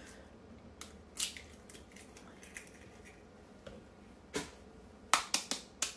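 Eggs being cracked on the edge of a mixing bowl: a few sharp taps and cracks, with a quick run of four taps near the end.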